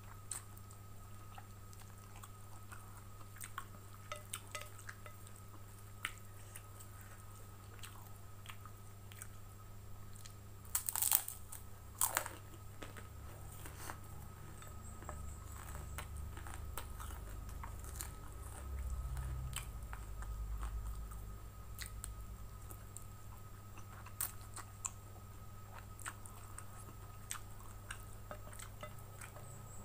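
A person chewing mouthfuls of wet fried noodles close to the microphone, with many small clicks and two louder crunchy bites about eleven and twelve seconds in.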